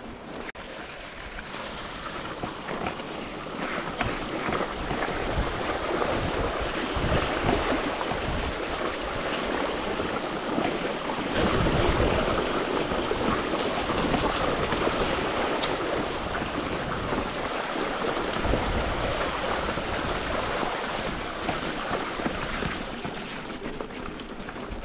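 Wind buffeting the microphone of a moving mountain-bike rider: a steady rushing noise with irregular low thumps, a little louder about halfway through.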